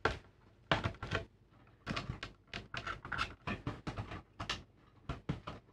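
Hands handling a TV's plastic speaker enclosure and internal cables and connectors: a run of light, irregular clicks and rustles.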